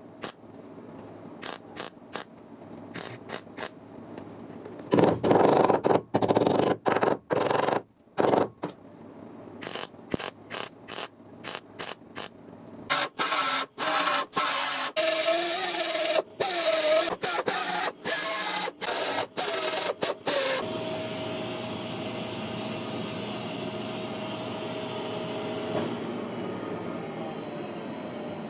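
Welder laying short stop-start bursts of tack welds on a thin steel body panel, the arc crackling in many brief runs that come quicker and louder about five seconds in and again mid-way. After that a steadier, quieter running noise follows.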